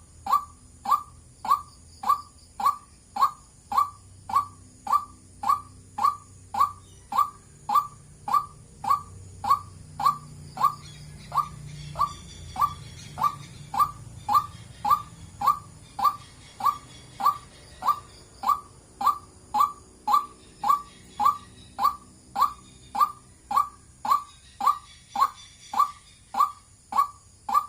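White-breasted waterhen repeating its monotonous 'kwak' call, one short note a little under two times a second.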